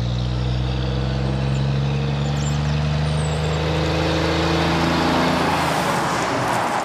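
Diesel engine of a Mack semi-trailer truck hauling a box trailer, running steadily as it approaches and passes close by. Tyre and road noise builds to a peak as it goes past, and the engine note dips slightly and fades.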